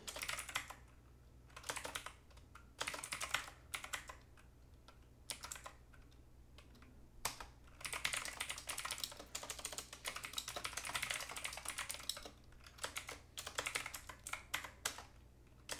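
Computer keyboard being typed on in quick bursts of keystrokes with short pauses in between.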